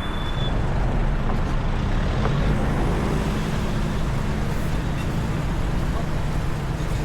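Road traffic: a steady low rumble of vehicles going by on the street.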